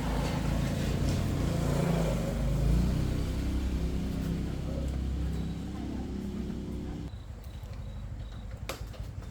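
A motor vehicle's engine running close by, a low rumble that is loudest in the first few seconds and then eases off, dropping away about seven seconds in.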